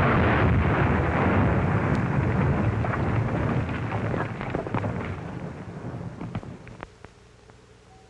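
Explosion rumbling and dying away, starting loud and fading out over about seven seconds, with scattered sharp cracks and clatter as it fades.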